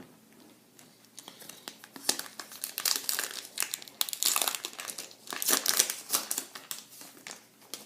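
A foil-wrapped pack of baseball cards being torn open by hand, its wrapper crinkling and crackling irregularly for about six seconds, starting faintly and growing louder about two seconds in.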